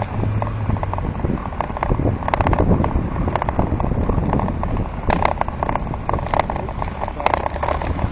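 A bicycle ridden on a road, picked up by a camera mounted on the handlebars: a dense, uneven rattle of clicks from the bike and the mount over a steady low rumble of tyres, wind and traffic.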